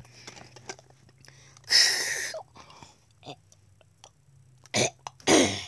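A person's voice making non-speech noises: a breathy hiss about two seconds in, then a short burst and a groan that falls in pitch near the end, over a faint low steady hum.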